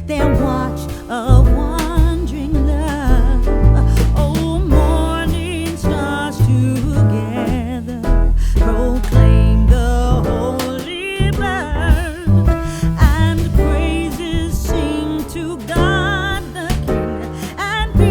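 Background music: a song with a vibrato singing voice over bass and a steady beat.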